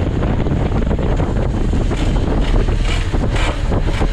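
Bajaj Pulsar 220 motorcycle riding with heavy wind noise on the microphone, and a harsh grinding scrape about two to three and a half seconds in as the bike leans through a sharp turn. The riders take the grinding for the center stand scraping the ground.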